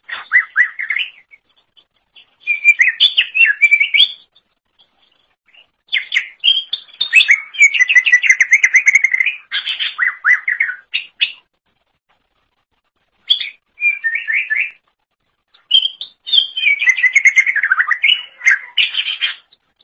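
Greater green leafbird (cucak ijo) singing in loud bursts of rapid, varied warbling and chattering notes, five phrases with short silent gaps between them.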